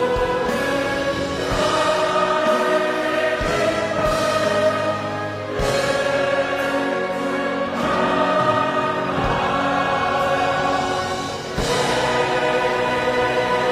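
A huge massed choir singing a slow hymn with orchestral accompaniment, holding long chords in broad phrases, each new phrase entering strongly.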